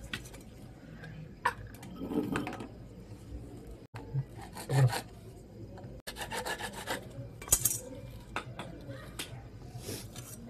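Hand-held hacksaw blade scraping and sawing at a white PVC pipe in short, irregular strokes, with a few sharp knocks from the pipe and fittings being handled.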